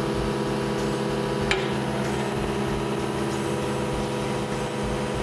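Mini excavator's diesel engine running steadily with its hydraulics working as the newly fitted thumb is opened and closed, cycling oil through the new lines to purge air from the thumb circuit. A single sharp click about a second and a half in.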